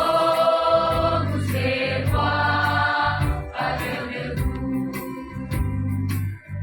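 Choir singing a hymn in long held chords, each chord changing every second or so over a steady low bass.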